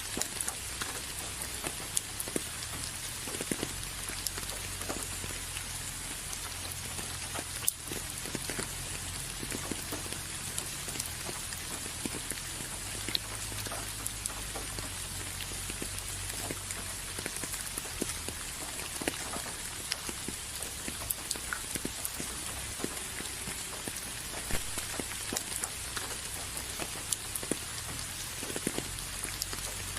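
Steady rain falling, a continuous hiss with many separate drops ticking on a surface.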